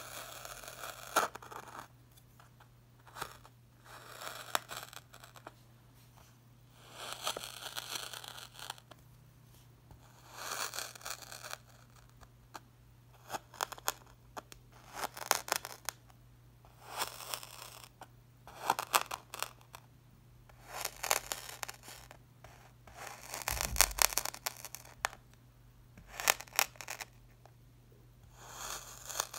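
Crunchy moulding sand being pressed and sliced with a metal utensil: a series of gritty crunches, one every second or two, each about a second long with sharp crackles. A faint steady hum runs underneath, and a soft low thump comes near the end.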